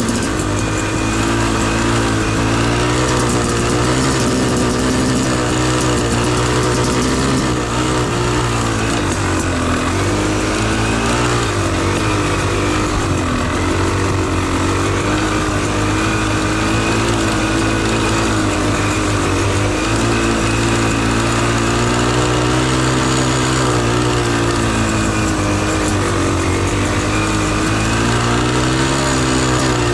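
Beta Xtrainer two-stroke dirt bike engine being ridden, its revs rising and falling continuously as the throttle is worked.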